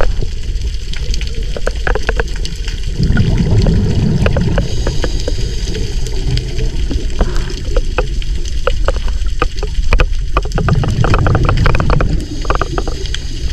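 Underwater sound of a scuba diver breathing through a regulator: a hissing inhale followed by a low rush of exhaled bubbles, twice, over steady underwater noise with many short sharp clicks.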